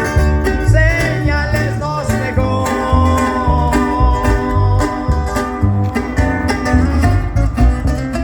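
Live band playing through a PA system: a prominent bass line pulsing under plucked guitar and drums with a steady beat.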